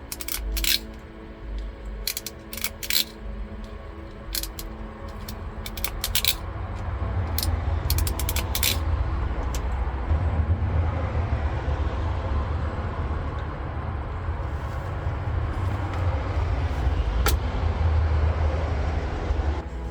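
Sharp clicks and snaps of a hand crimper and wire connectors being worked, a dozen or so over the first nine seconds, with one more later. From about six seconds a steady low rumble builds under them, over faint background music.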